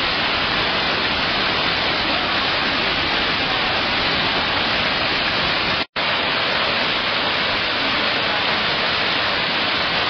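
Steady rushing water of the Iguazu Falls, a dense even noise, broken by a split-second gap of silence about six seconds in where the recording cuts.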